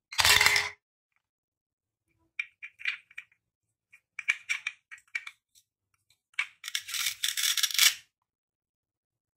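Plastic toy fruit pieces being handled, with scattered light clicks, then a crackling rip of about a second and a half as a velcro-joined toy watermelon is pulled into halves. It opens with a short loud rasp.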